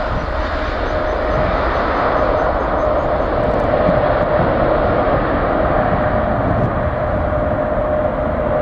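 Boeing 777-260's twin GE90 turbofan engines at takeoff thrust as the jet climbs away: loud steady jet noise with a droning tone, its higher frequencies slowly fading as the aircraft draws off.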